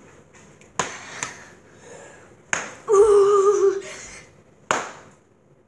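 A boy's drawn-out whine, held at a steady pitch for nearly a second midway through, in reaction to the burn of hot sauce. A few sharp clicks come before and after it.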